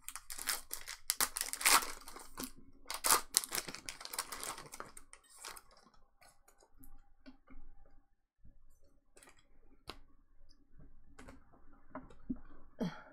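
Foil trading-card pack wrapper crinkling and tearing as it is ripped open by hand, for about the first five seconds. After that come faint scattered clicks and slides of cards being handled.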